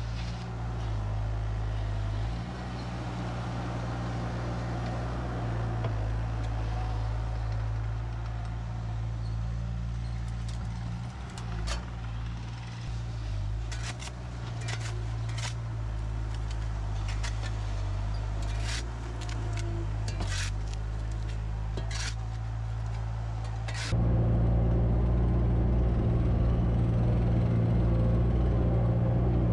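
A compact construction machine's diesel engine running steadily, with a few short sharp knocks scattered through the middle. About 24 seconds in it suddenly gets louder.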